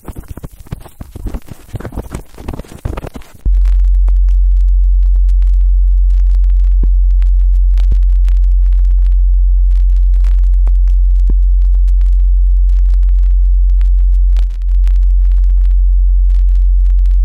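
A loud, deep, steady electronic drone, like a pure low tone, from the film's sound design. For the first three seconds or so it gives way to irregular crackling, scratching noise, then returns and holds, with faint ticks over it.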